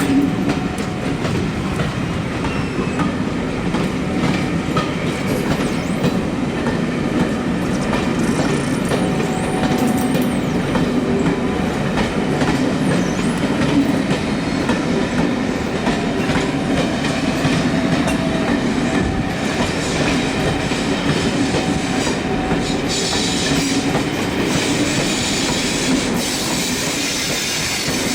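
A train running past at steady speed, its wheels and running gear making a continuous loud rumble on the track.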